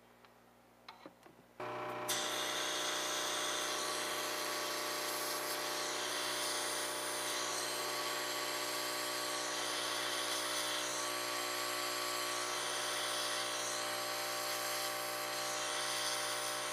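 Aoyue 932 vacuum pickup station's pump: after a few light clicks, it switches on about a second and a half in and runs steadily as a constant hum with a hiss.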